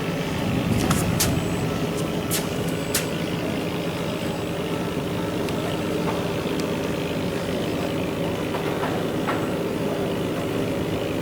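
An engine running steadily, a continuous drone, with a few sharp clicks in the first three seconds.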